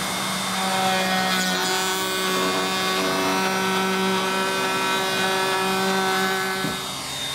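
DeWalt plunge router running at full speed, its spinning bit cutting a test groove into a pallet-wood board: a steady whine over the rough noise of the cut. The whine drops in pitch near the end.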